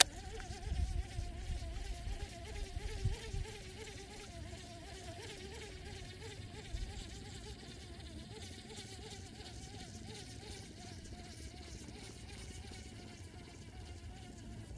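Baitcasting reel being cranked: a steady whirring whine from the reel's gears, its pitch wavering with each turn of the handle. A few low handling bumps come in the first few seconds.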